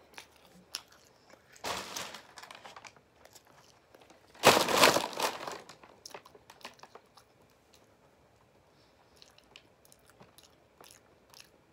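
Paper takeout bag crinkling in two bursts, about two seconds in and a louder, longer one around four and a half seconds in, between stretches of quiet chewing with small mouth clicks.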